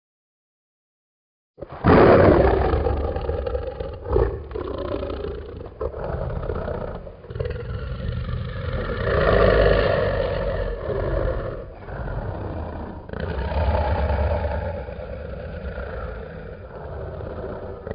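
Dragon roar sound effect: after about a second and a half of silence it starts suddenly and loud, then runs on as a long, low, growling roar that swells and eases several times.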